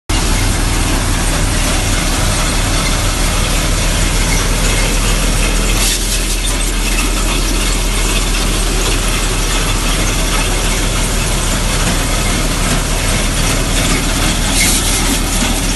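NVT basket-model grain thresher running steadily, a loud continuous mechanical clatter over a low hum as it threshes grain.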